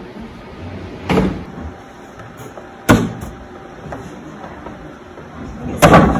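Cornhole bean bags landing with three thuds on the wooden boards and deck, about a second in, near the middle and near the end; the last is a bag landing on the near board.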